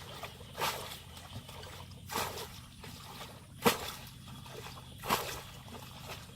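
Water splashing and sloshing in shallow water, a short splash about every second and a half, with trickling between.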